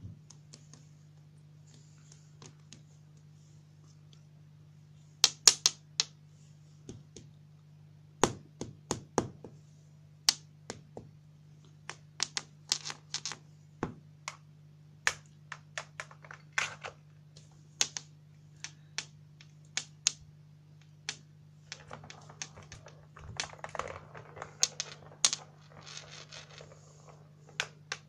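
Irregular sharp plastic clicks and clacks from a round ball-track cat toy as kittens bat at it. About two-thirds through, a denser stretch of scrabbling and rattling. A faint steady low hum runs underneath.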